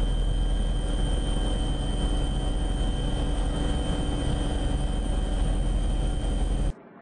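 Steady engine and cabin noise of a surveillance aircraft heard from on board, a deep rumble with several steady whining tones above it. It cuts off suddenly near the end.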